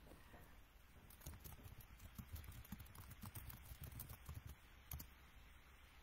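Faint computer keyboard typing and clicking: irregular soft taps and clicks from about a second in, with one slightly louder click about five seconds in.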